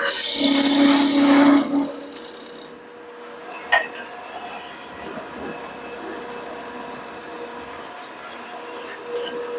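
Wood lathe running with a turning tool cutting a spinning walnut blank: a loud scraping cut for about the first two seconds, then lighter, quieter cutting over the lathe's steady hum, with one sharp click just under four seconds in.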